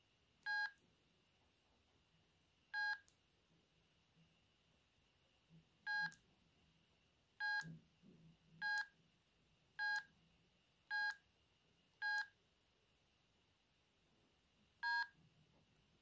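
Sendo S360 mobile phone giving short key-press beeps, nine in all at irregular intervals as its buttons are pressed. Each beep is a brief two-tone bleep, and the last one is slightly higher.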